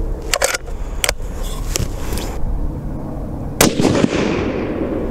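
Bolt of a Ruger Precision Rifle worked with a few sharp metallic clicks, then about three and a half seconds in a single 6.5 Creedmoor rifle shot whose echo fades over about a second.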